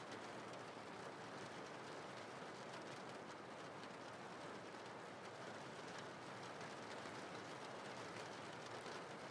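Steady rain falling, an even, faint hiss with no single drops standing out.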